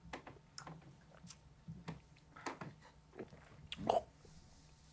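Faint scattered clicks and mouth noises, lip smacks and sips, from a group drinking shots in silence, with one short louder sound near the end.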